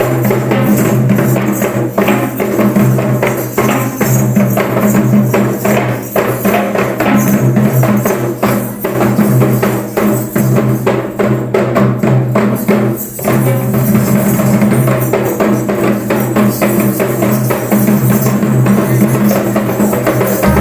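Background music with a steady beat of tambourine and drums.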